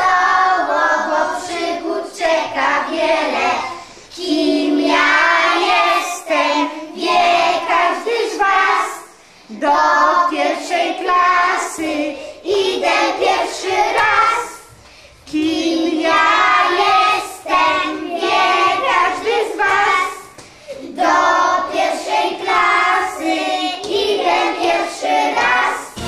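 A group of young children singing a song together in unison, in phrases of a few seconds broken by short pauses for breath.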